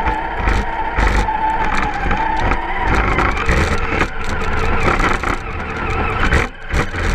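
Radio-controlled truck's electric motor whining at a steady high pitch under throttle as the truck ploughs through deep snow, with repeated knocks and scraping from the chassis bumping through it. The whine drops away near the end.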